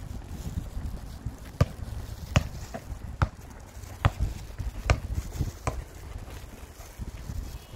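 Soccer ball kicked and bounced on paving stones while walking: about eight sharp thuds, each under a second apart, starting about a second and a half in.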